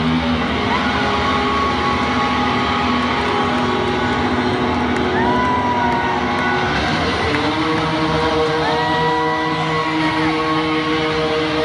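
Distorted electric bass and amplifier feedback droning in held tones through the stage amps, shifting to new pitches about seven seconds in, with crowd whoops over it.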